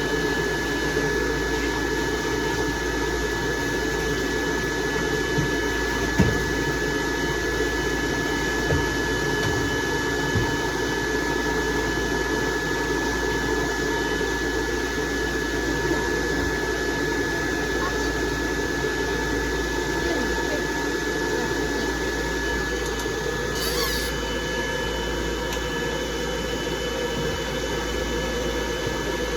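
Dryer blowing steadily on a dog's coat, with a constant high whine over the rush of air; a few light knocks come between about six and ten seconds in.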